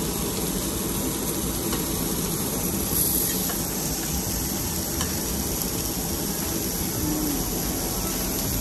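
Meat sizzling steadily on a hot round cast-iron grill plate at a Korean barbecue table.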